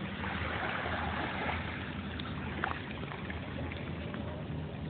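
Steady wind and water noise at the water's edge, heard through a phone microphone, with a few faint clicks.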